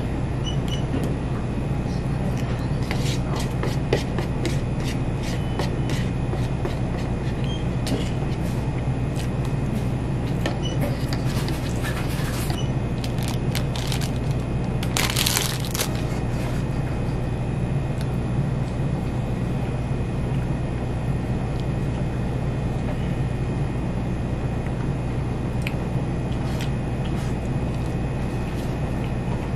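Crinkling and a short loud rip of a plastic snack-bun wrapper being torn open about fifteen seconds in, after scattered small clicks and crinkles of handling, over a steady low background hum.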